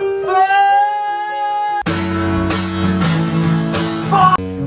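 Rock music: a single high note rises slightly and is held over guitar chords. About two seconds in, the full band with drums comes in loudly.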